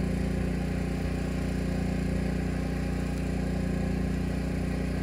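An engine idling steadily: a low, even hum that does not change.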